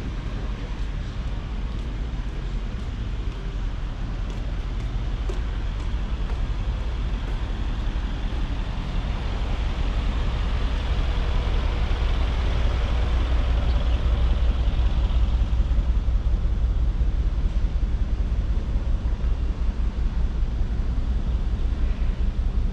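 Street traffic noise, a steady rumble of passing vehicles that grows louder about halfway through as traffic comes close.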